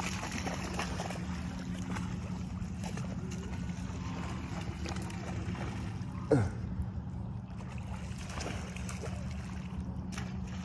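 A puppy splashes and wades through shallow lake water, the splashes falling away as it moves out, over a steady low motor-like drone. There is a short, loud falling sound about six seconds in.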